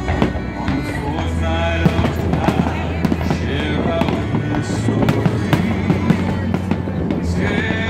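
Fireworks bursting in quick succession over a deep rumble, with music playing alongside.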